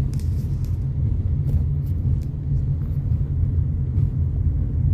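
Steady low road rumble of a car driving, heard from inside the cabin, with a few faint clicks over it.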